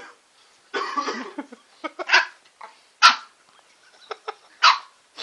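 Shih-tzu puppy barking in short, sharp yips. The three loudest come about a second apart in the second half.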